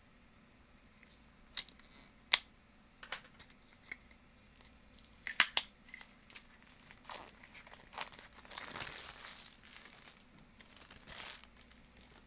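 Unboxing a Funko soda collectible: a few sharp clicks and taps as it is handled, then a few seconds of plastic packaging crinkling and tearing as it is opened.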